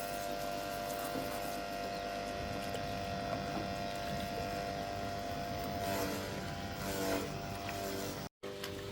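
A motor or engine running steadily with an even hum, wavering briefly near the end before the sound cuts off abruptly.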